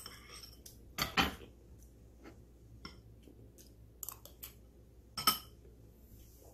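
Eating sounds: a metal spoon clicking against a dish and noisy open-mouthed chewing with lip smacking. They come in a few short sharp bursts, the loudest about a second in and again just past five seconds.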